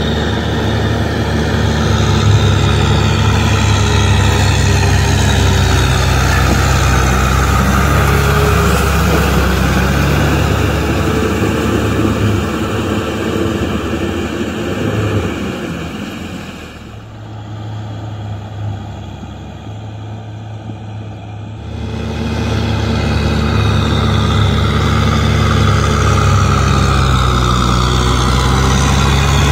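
Kubota M6040SU tractor's diesel engine running steadily while the tractor pushes and tills through wet mud. About halfway through, the sound turns quieter and duller for about five seconds, then comes back to full level.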